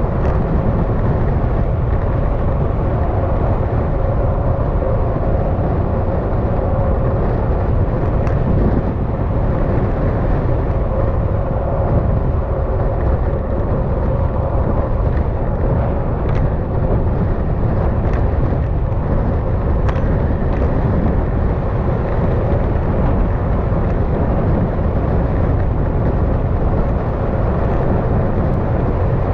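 Yamaha XMAX scooter's single-cylinder engine running at a steady cruising speed, a constant drone with an even hum, mixed with wind and road noise from riding.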